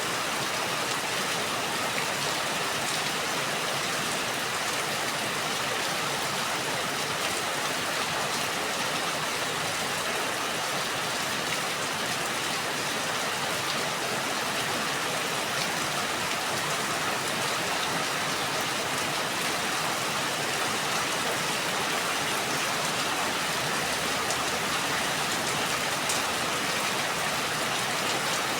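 Steady rain falling: an even, unbroken hiss with faint scattered ticks of individual drops.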